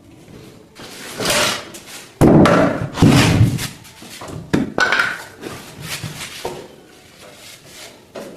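Irregular knocks and heavy thuds with scraping from wooden panels being handled and set down. The two loudest thuds come about two and three seconds in, then sharper knocks follow.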